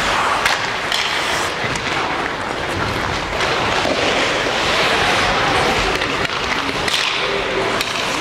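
Ice hockey play: a steady scrape of skates on the ice, with a few sharp knocks of sticks and puck, some about a second in and a couple near the end.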